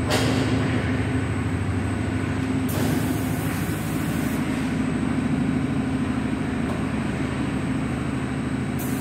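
Polyurethane shoe-sole moulding machine running: a steady motor hum with a low drone. A high hiss joins it for over a second about three seconds in, and again briefly near the end.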